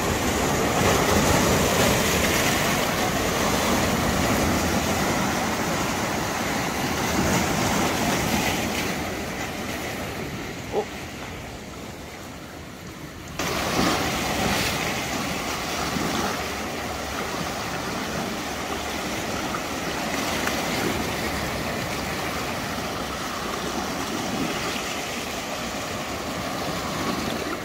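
Sea surf surging and washing over shoreline granite rocks, a steady rush of water. About a third of the way in it falls away for a few seconds, with one short knock, then comes back suddenly.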